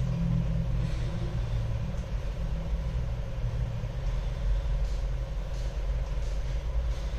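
Steady low background rumble with a faint steady hum above it.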